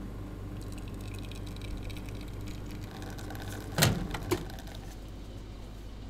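Espresso machine pulling a shot: a steady low pump hum with the faint trickle of coffee pouring into a cup. A sharp clunk comes about two-thirds of the way in, followed by a smaller knock.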